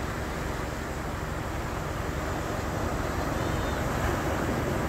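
Ocean surf breaking and washing over a rocky shore: a steady rush that grows a little louder toward the end.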